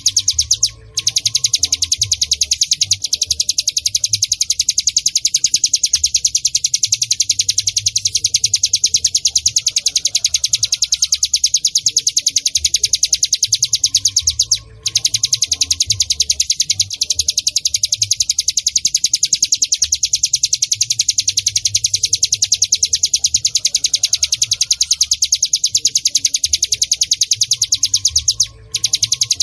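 A ciblek gunung (cigun) singing a continuous, very rapid, high-pitched chattering trill. The trill breaks off briefly three times: about a second in, around the middle, and near the end.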